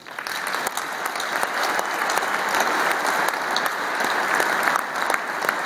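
A large audience applauding, swelling over the first second after the speech ends and then holding steady.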